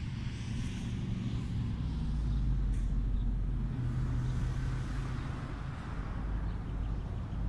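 Steady low hum of a distant engine, with outdoor background noise.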